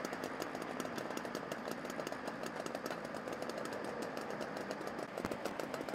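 Engine idling steadily, with a rapid, even clatter.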